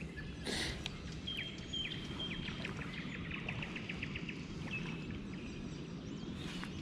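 A small songbird singing a few high notes and then a rapid trill, over a steady low outdoor background rumble. A brief rushing noise comes in just after the start and again near the end.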